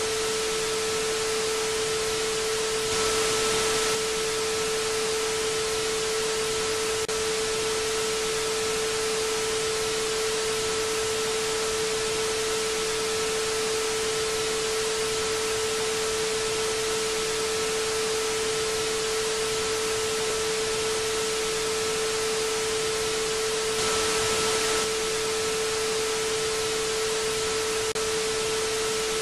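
Television static: a steady hiss with a constant low tone running under it. The hiss swells briefly about three seconds in and again some twenty seconds later.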